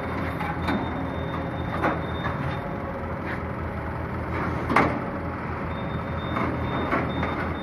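Yanmar mini excavator's diesel engine running steadily under hydraulic load as the machine levers itself up onto a dump truck's bed, with a few metallic clanks and one sharper knock about five seconds in.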